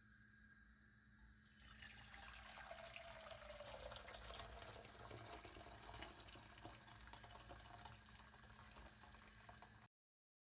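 Water running from a kitchen tap into a sink, starting about one and a half seconds in as a steady, faint hiss with light splashing, and cutting off abruptly near the end.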